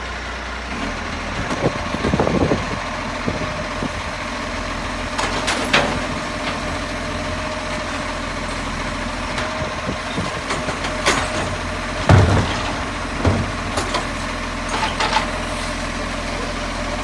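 Engine idling steadily with a buzzing sound, a thin steady tone above the low hum. A few short knocks sound through it, the loudest about two seconds in and about twelve seconds in.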